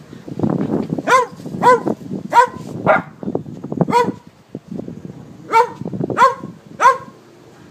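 Small dogs barking in short, sharp yaps, about eight in two runs with a pause between, over a low rough rumble.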